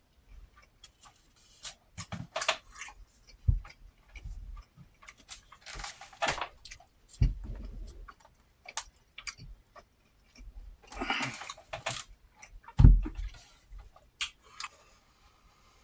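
Close-up eating and table sounds: scattered clicks and taps of a utensil against a plate and dishware, with a few dull thumps, the loudest about 13 seconds in, and short rustling stretches about 6 and 11 seconds in.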